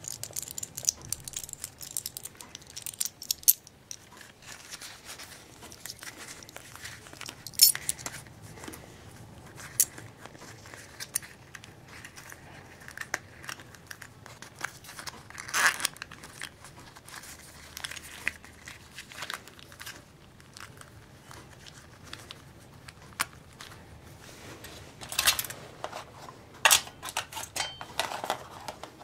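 Hands handling small survival-kit items: irregular clicks and taps of small metal and plastic pieces and the crinkle of a card blister pack of button-cell batteries, with a quick run of sharper clicks near the end as items are set into a plastic storage tin.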